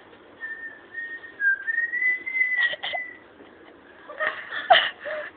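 A person whistling one thin, wavering note for about three seconds, dipping and then sliding slightly up in pitch, followed near the end by short bursts of voices.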